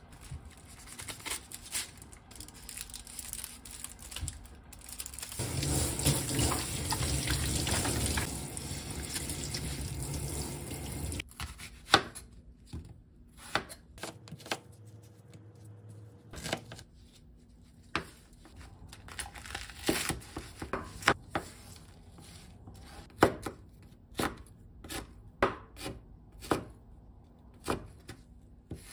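A kitchen tap runs into a stainless steel sink for about six seconds. Then a knife chops onion and green chili peppers on a wooden cutting board, in sharp irregular knocks that come faster near the end.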